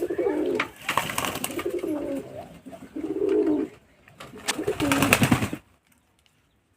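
Domestic pigeons cooing in several low, warbling phrases, with clicks and rustling among them. All of it cuts off suddenly near the end.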